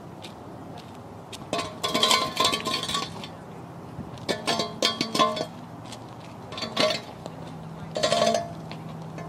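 Metallic jingling and clinking in four short bursts, with a brief ringing to each clink; the first two bursts last about a second each and the last two are shorter.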